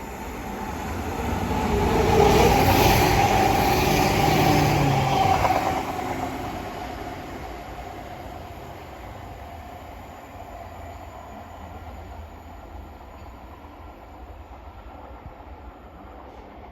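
Train passing through. Its noise builds to a peak about two seconds in, holds for a few seconds with tones falling in pitch, then slowly fades away.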